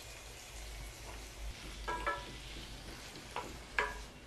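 Shallots and tomato pieces sizzling softly in oil in a kadai turned down to low heat, stirred with a wooden spatula. The spatula knocks against the pan a few times with a short ring, loudest near the end.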